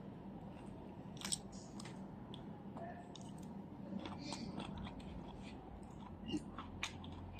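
A person chewing food with the mouth open: faint, irregular crunching and small wet clicks.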